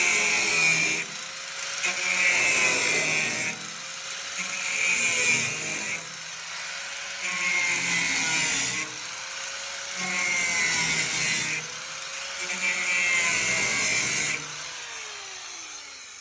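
Handheld power tool working metal in repeated passes of a second or two, with brief let-ups between them. Near the end the motor winds down as the tool is switched off.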